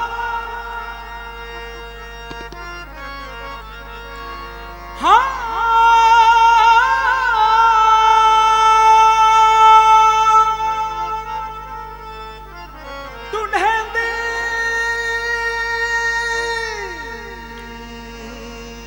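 Gurbani kirtan: a male ragi holds long sung notes without words over sustained harmonium tones. A new phrase starts about five seconds in and another past the middle, each sliding and wavering up into its note, and the last one fades away near the end.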